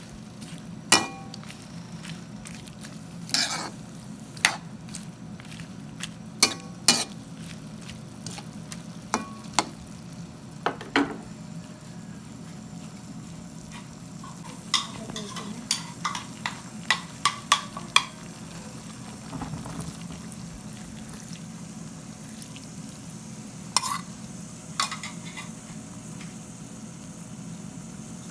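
Food frying in a pan while being stirred, with a steady sizzle and scattered sharp knocks of the cooking utensil against the pan, most of them close together about halfway through.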